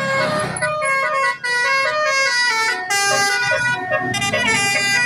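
Bus 'telolet basuri' musical air horn, a multi-tone horn playing a quick tune of stepping notes. A low rumble sits under it near the end.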